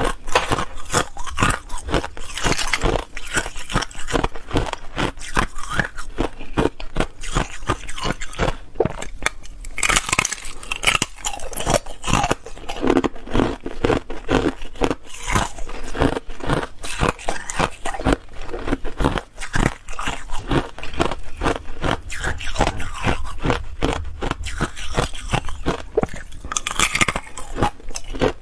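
Hard clear ice being bitten and chewed: a dense run of rapid crunching and cracking that carries on without a break.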